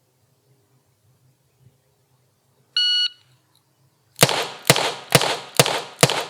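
Shot-timer start beep, then about a second later a rapid string of five shots from a Smith & Wesson Model 13-4 revolver firing .38 Special, roughly two a second.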